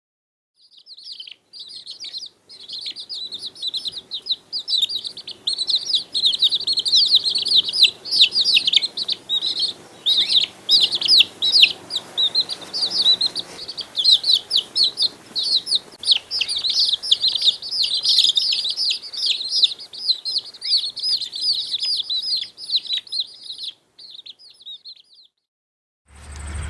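Many small birds chirping at once: rapid, overlapping high-pitched peeps with no pause, stopping about a second before the end.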